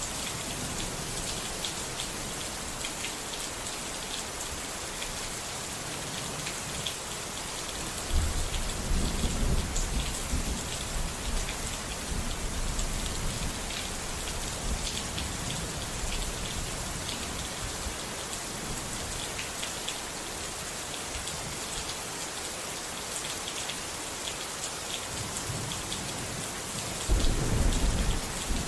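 Steady rain with two low rolls of thunder, one about a third of the way in and another near the end.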